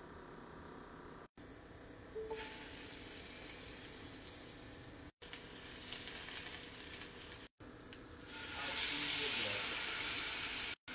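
Butter sizzling in a hot cast-iron skillet, starting about two seconds in, broken by a few sudden brief dropouts. About eight seconds in the sizzle gets louder as raw seasoned chicken breasts go into the pan.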